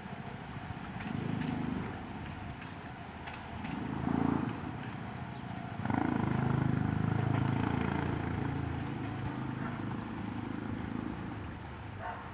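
Low rumble of passing vehicles, swelling and fading a few times. A louder pass starts suddenly about six seconds in and dies away over the next few seconds.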